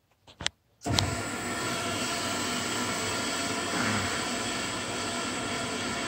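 VXT-120 boiler water feeder's solenoid valve opening after a few small clicks, then a steady rush of water feeding into the steam boiler. The feeder is thought to be letting in more water than it should, and a dislodged flow restrictor in its valve is suspected.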